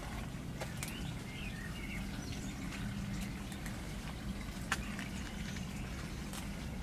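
Outdoor garden ambience: small birds chirping faintly over a steady low rumble, with a few sharp ticks, the loudest about two-thirds of the way through.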